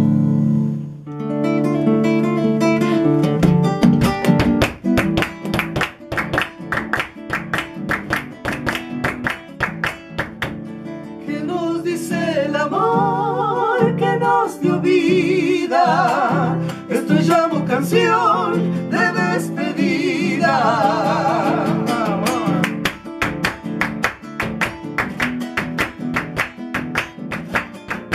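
Classical acoustic guitar strummed in a steady folk rhythm, an instrumental passage between sung verses. From about eleven seconds in to about twenty-two seconds, a voice joins with wordless singing that wavers in pitch.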